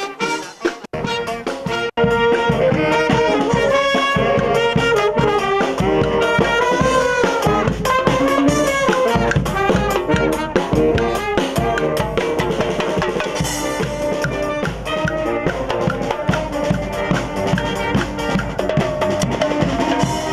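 Marching street band of saxophones, trumpets and marching drums playing a tune over a steady drum beat. The sound drops out briefly twice near the start, then the full band plays on.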